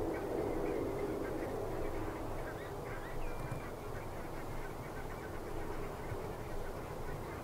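A flock of geese calling continuously in a dense chatter, with scattered short, higher calls from other birds over it and one brief whistled note about three seconds in.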